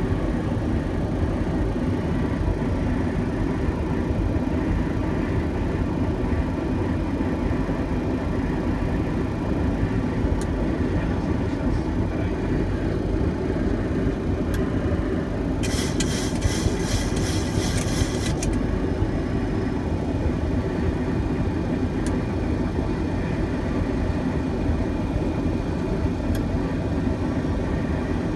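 Steady flight-deck noise of a Boeing 737-700 on its descent: a constant deep rush of airflow and engine noise. A few faint clicks, and a brief burst of higher hiss about two-thirds of the way through, lasting a couple of seconds.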